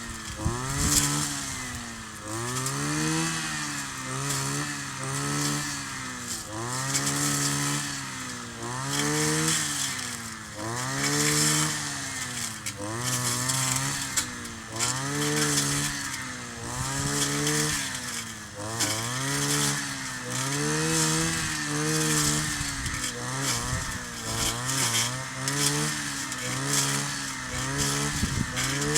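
Kioritz 260 brush cutter's small two-stroke engine running. It revs up and drops back over and over, about once every second or two.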